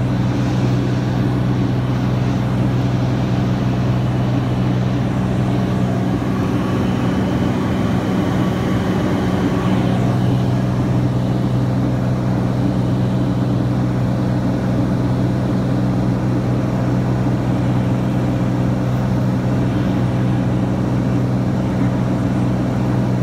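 Steady drone of a light propeller plane's engine and propeller, heard from inside the cabin.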